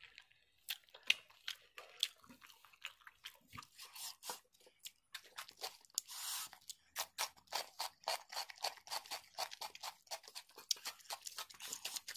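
Close-miked chewing of a mouthful of puffed rice mixed with rice and curry: crisp crunches and wet mouth clicks, irregular at first, then settling into an even rhythm of about three chews a second.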